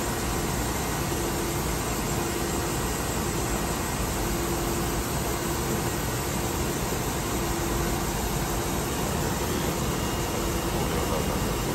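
Steady mechanical hum and hiss of a CNC machine running in the shop, with a faint tone that comes and goes.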